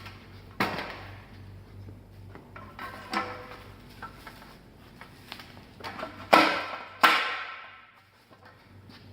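Bicycle headset bearing parts being fitted onto a fork's steerer tube: about four sharp metallic knocks with small clicks between, each knock ringing briefly, the two loudest about six and seven seconds in.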